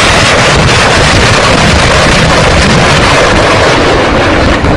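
Loud, steady roar of wind buffeting the microphone, a dense rumbling noise with no separate shots or blasts.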